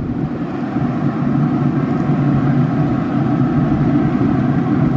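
Traeger pellet grill running with its lid open: a steady, even hum from its fan.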